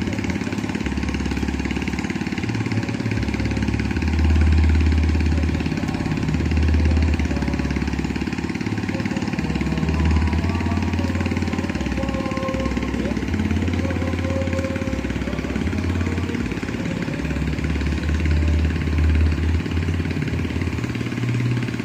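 Engine-driven water pump running steadily while draining a fish pond, its low drone wavering slightly in pitch every second or two.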